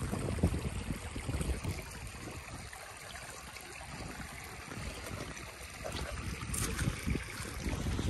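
Shallow spring-fed stream trickling over rocks, with irregular low thumps, heaviest in the first second and near the end.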